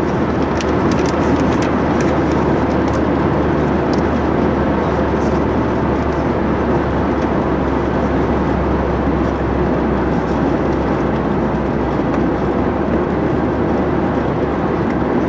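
Steady road and engine noise heard inside a car cruising at highway speed, an even rumble with no change in level.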